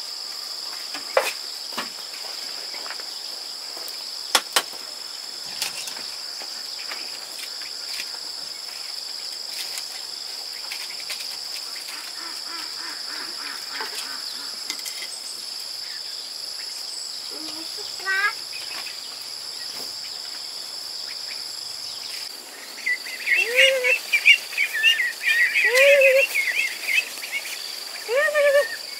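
Steady high-pitched drone of insects, with a few sharp knocks of firewood being shifted in a small wood fire early on. About 23 seconds in, a flock of ducklings starts peeping busily, with a few lower rising calls among the peeps.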